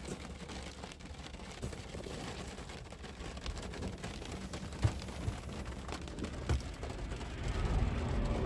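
Car driving on a highway, heard from inside the cabin: steady road and engine noise with a few sharp taps, growing louder near the end.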